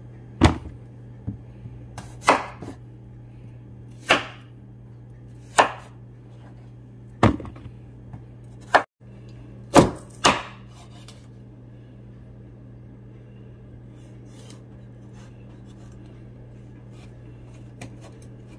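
Chef's knife chopping potatoes and then carrots on a bamboo cutting board: about eight sharp knocks of the blade hitting the board, a second or two apart, in the first eleven seconds, then only faint light taps. A steady low hum runs underneath.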